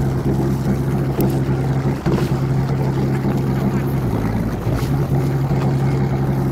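Fishing charter boat's engine running with a steady drone, its pitch dipping briefly about four seconds in.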